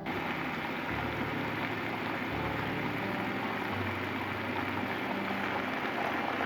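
Steady rush of running water inside a washing machine, with quiet background music underneath.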